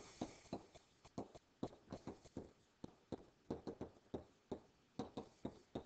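Faint, irregular clicks and taps of a stylus on a writing surface during handwriting, several a second.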